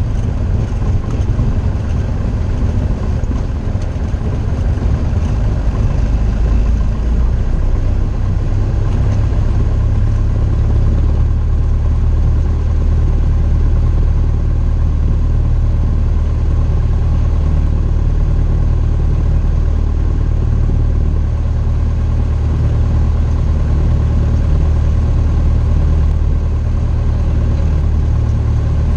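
Light aircraft engine running steadily, a loud low drone that rises slightly about ten seconds in.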